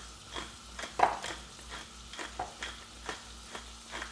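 Pepper mill being twisted, grinding black pepper in short crunching clicks about twice a second, one louder about a second in, over a faint steady sizzle of butter frying in a pan.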